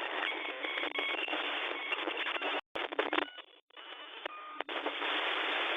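Radio-style static hiss with a few short beeps, cut off sharply below and above like sound through a telephone, dropping out briefly twice in the middle.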